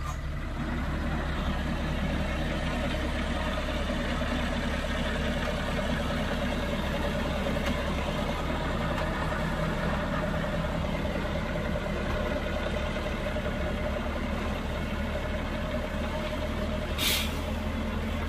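Heavy dump truck's diesel engine running steadily with a low rumble. About 17 seconds in there is one short, sharp hiss.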